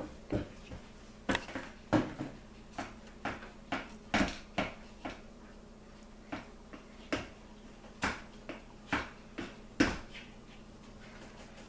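Irregular knocks and clicks, one or two a second, from a hand mixer and its beaters being handled against a batter-filled mixing bowl; the mixer's motor is not running.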